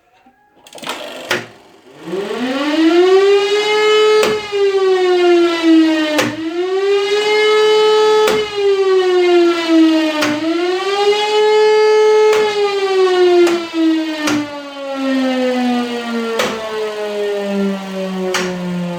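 E57 electromechanical siren spinning up and sounding a short form of the rising-and-falling public-warning signal. Its tone climbs, dips and climbs again three times, then winds down in a long falling glide. A sharp click marks each turn of the pitch.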